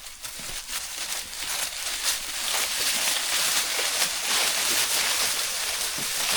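Brush and leaf litter rustling and crackling with many small snaps, growing louder over the first few seconds and then holding steady: cut branches being handled and dragged through the undergrowth.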